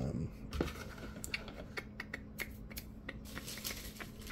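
Scattered light clicks and taps of plastic blister packs and display boxes being handled and shifted.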